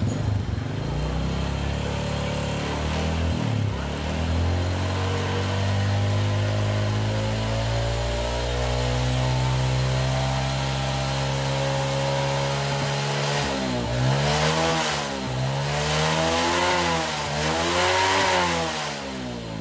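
Honda Supra Fit's single-cylinder four-stroke engine running on the stand with its freshly cleaned carburetor being set. Engine speed climbs slowly for about twelve seconds, then the throttle is blipped up and down several times in quick revs.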